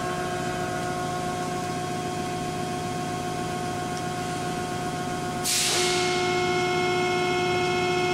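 YCM Supermax XV1020A vertical machining center's spindle running free at a few thousand RPM: a steady mechanical hum with a whine of several tones. About five and a half seconds in, a short hiss is heard and the running sound gets louder, adding a lower and a higher tone.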